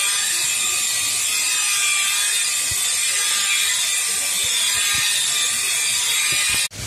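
Corded electric rotary polisher running steadily with its buffing pad pressed against a plastic headlight lens, polishing out the yellowed, faded surface. The motor note holds level throughout and cuts off abruptly near the end.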